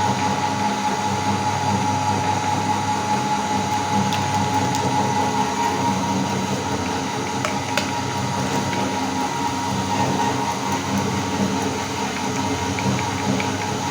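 Electric meat grinder running steadily, with a constant motor whine and a few faint clicks.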